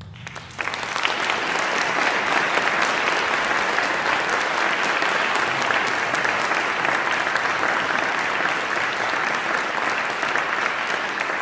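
Audience applauding: the clapping breaks out suddenly, swells to full strength within the first second, then holds steady and dense.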